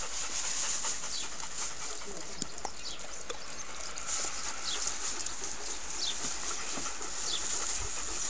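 Steady outdoor background hiss with short, high, falling bird chirps about once a second.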